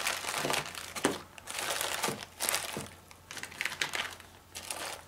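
Plastic zip-lock parts bags and bubble wrap crinkling in a string of short rustling bursts as they are handled in the box.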